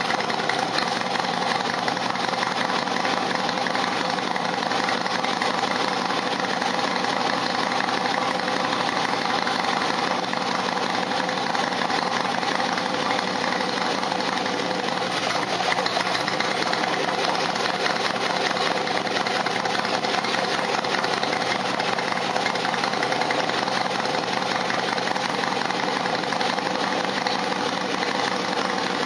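Harley-Davidson V-twin motorcycle engine idling steadily.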